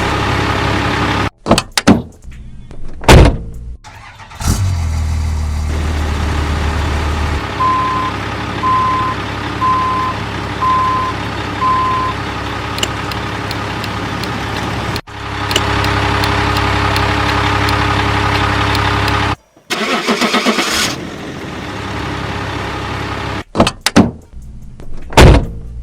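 Recorded truck engine sound effects from a toy sound module, with running and idling engine noise broken by short cut-outs and loud bursts. A run of five steady beeps about a second apart comes in the middle.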